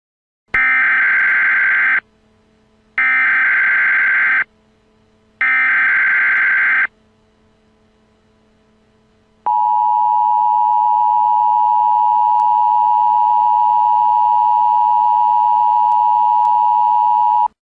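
Emergency Alert System broadcast header: three short, identical bursts of harsh, buzzy SAME digital data. After a pause comes the EAS two-tone attention signal, 853 and 960 Hz, held steady for about eight seconds before cutting off abruptly.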